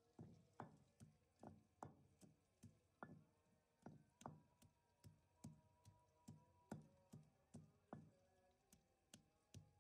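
Wooden pestle pounding garlic cloves in a stone mortar: faint, dull knocks in a steady rhythm of about two to three strokes a second.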